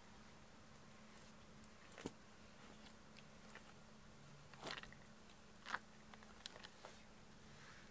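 Near silence: room tone with a faint steady hum, broken by a few brief, soft rustles and clicks about two seconds in and again between about four and a half and seven seconds in.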